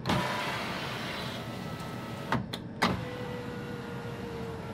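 Power window motor in the bare front passenger door of a 2017 Mitsubishi Outlander, running the new glass along its track. Several sharp clicks come in the first three seconds, then a steady hum.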